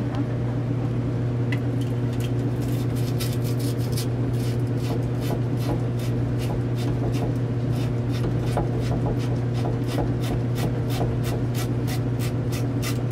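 A wire-brush copper fitting cleaner being twisted back and forth on the end of a half-inch copper tube: a run of short metal-on-metal scraping strokes, about two to three a second, starting about two seconds in. A steady low hum runs underneath.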